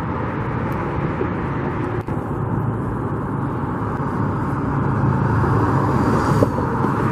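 Steady road traffic noise with a low engine hum, growing a little louder near the end.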